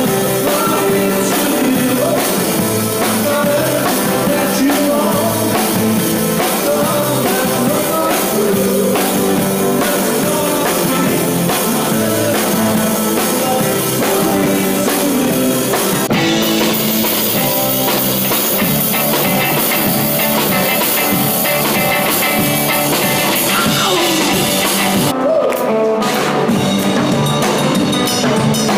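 Live rock band playing: electric guitars, bass and drum kit, with sung vocals.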